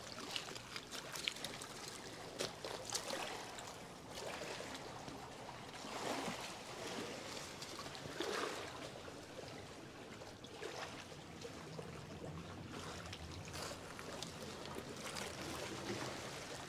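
Shallow river water lapping and trickling among the rocks at the shoreline, with a few gentle swells of wash. Scattered light clicks of pebbles and stones shifting underfoot, mostly in the first few seconds.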